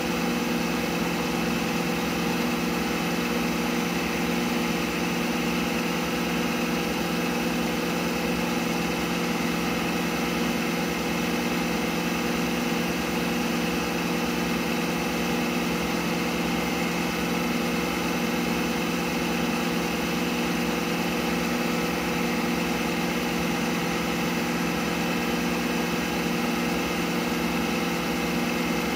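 CNC milling machine spindle running steadily as it turns a bar workpiece for lathe-style machining: an even machine hum with several fixed tones that does not change.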